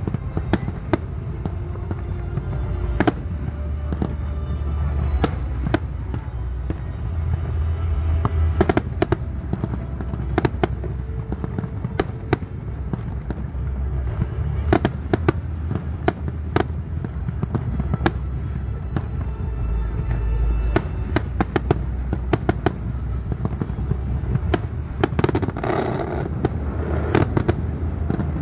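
Aerial fireworks display: shells bursting in quick succession, several sharp bangs a second over a steady low rumble.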